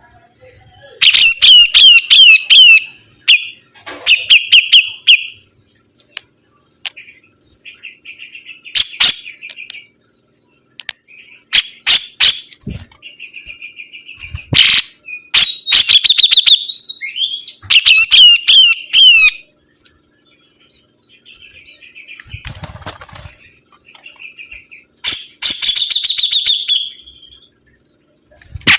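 Sibuntung songbird singing vigorously: loud phrases of fast repeated chirping notes, each burst a second or two long, broken by short pauses and softer twittering.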